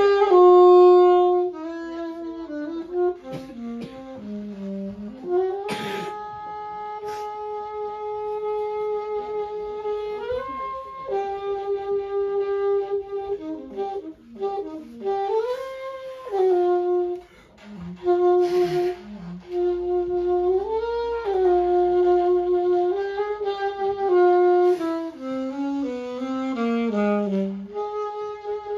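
Unaccompanied saxophone playing a slow melody of long held notes joined by pitch bends and slides, with a few shorter lower phrases and a brief breath pause partway through.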